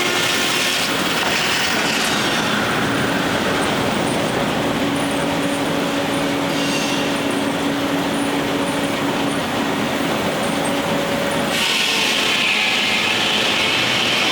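Steam-powered sawmill at work: steady loud machinery noise, with a faint steady hum in the middle and a brighter, harsher noise setting in near the end.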